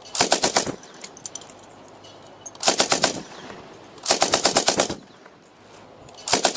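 M60 machine gun firing four short bursts of rapid shots, about ten a second, with pauses of a second or more between bursts.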